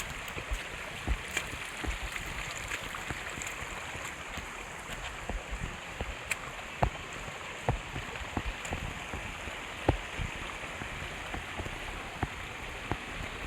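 Steady rushing of flowing water, with irregular low knocks and thumps scattered through it.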